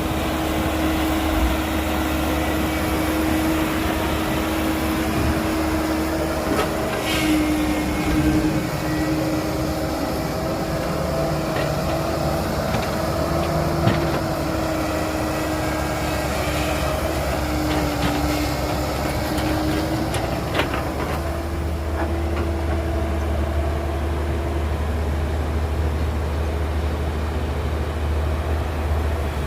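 Heavy diesel earthmoving machinery running steadily, a constant low rumble with a held droning tone, broken by a few short knocks.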